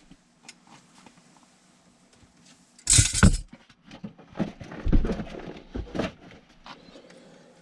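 Handled tools and metal parts knocking and clattering: one sharp loud knock with a rattle about three seconds in, then a run of thumps and rattles, and a small click near the end.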